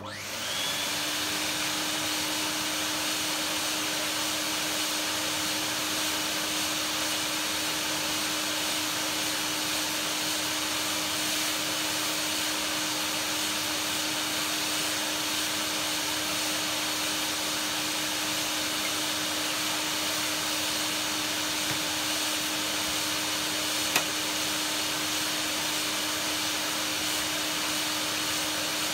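Vacuum cleaner switched on and running steadily at full speed, with a constant hum under the rush of air, as it cleans dust off a vacuum's filter and top part. A single sharp click about 24 seconds in.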